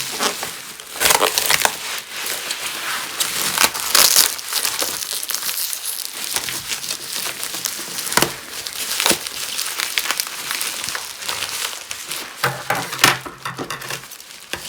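Plastic garbage-bag wrapping and brown packing tape being crumpled, crinkled and torn away from a parcel by hand, a continuous run of rustling with sharp crackles.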